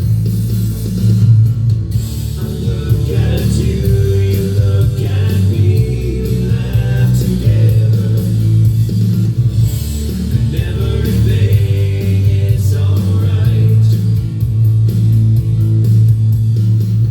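Recorded band music playing: guitar and a heavy bass line, with singing at times.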